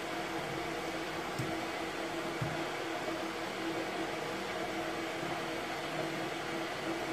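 Steady hum of a small fan motor with a faint rushing hiss, and a soft knock about a second and a half in and another a second later.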